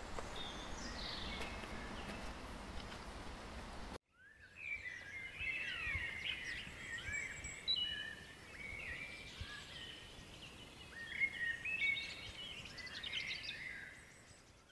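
Steady outdoor background noise with a few faint bird notes, then, after a sudden cut about four seconds in, a busy chorus of songbirds with many overlapping chirps and quick rising and falling whistles, fading out near the end.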